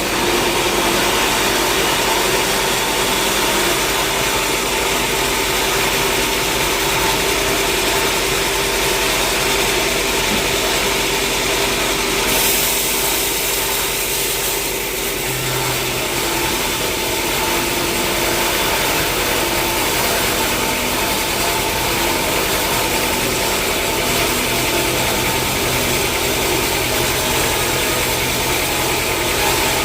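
Sawmill machinery running steadily: a constant engine-like drone with steady whining tones. The sound shifts slightly about halfway through.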